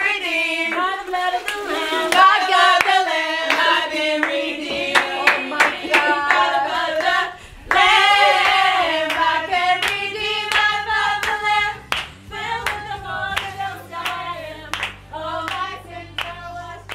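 Several women singing a celebratory worship song together, with sharp hand claps scattered through it.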